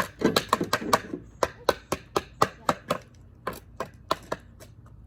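Hockey stick struck against the ground in a quick run of sharp knocks, about four a second, getting fainter toward the end.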